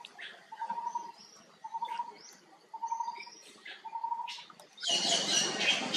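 A bird repeating a short trilled note about once a second, with faint higher chirps in between. About five seconds in, a loud rushing noise sets in.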